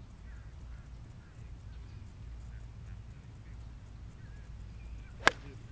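A golf club strikes a ball on a full swing, a single sharp click about five seconds in. Faint bird calls and a low wind rumble come before it.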